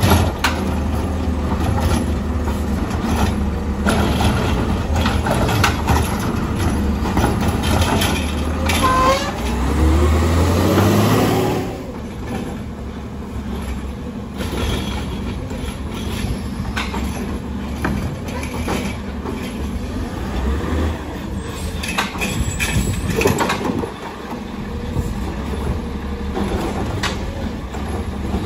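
Heil Rapid Rail automated side-loader garbage truck on a CCC chassis running, its diesel engine revving up with a rising whine about nine to twelve seconds in as the hydraulics work. After that the truck is quieter and further off, with scattered clanks and knocks as its automated arm grabs and lifts a trash cart.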